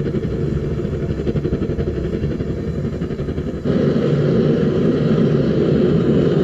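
Gas forge burner running with a steady rushing rumble while a steel tomahawk blank heats inside; it gets louder a little past halfway.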